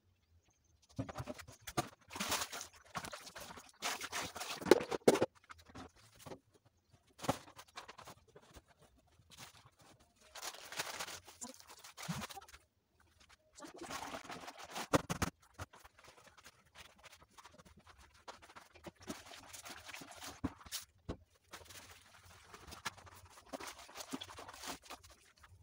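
Plastic basins and containers being moved and set down on shelves and a tiled floor: scattered knocks, scrapes and rustles in irregular bursts a second or two long, with short quiet gaps between them.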